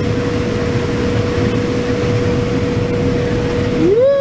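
Combine harvester running steadily while harvesting corn: a low, even drone with a constant whine running over it. A person's rising-then-falling whoop begins right at the end.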